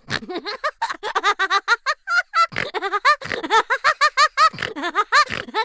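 Short segment-intro sting: a rapid run of short, high notes that arch up and down in pitch, about six a second, cutting off sharply at the end.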